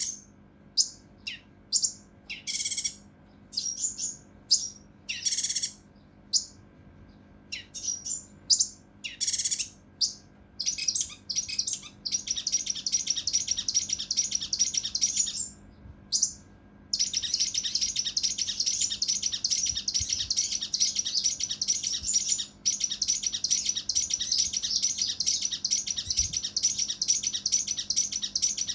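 Kinoi (cucak rante mas) singing. At first it gives loud separate calls, then long unbroken runs of rapid, harsh notes, the 'tembakan' bursts of an agitated bird.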